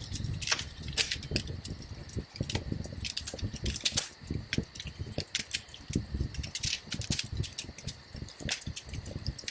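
Wood fire in a fireplace crackling: irregular sharp pops and snaps over a low, steady sound of burning.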